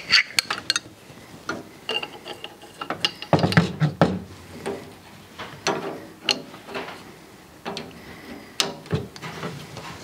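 Two wrenches, an adjustable wrench and a pipe wrench, clicking and clanking against a brass ball valve and its fitting as the valve is tightened onto Teflon-taped threads. The clicks and knocks come irregularly, with a louder cluster about three to four seconds in.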